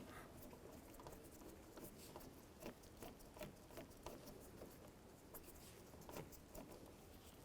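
Faint, irregular small clicks and taps of a hand tool tightening the door handle's retaining screw.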